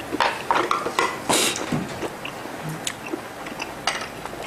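Scattered light taps and clicks of chopsticks and tableware against plates, with a short louder rustle about one and a half seconds in, as meat is wrapped with vegetables for tasting.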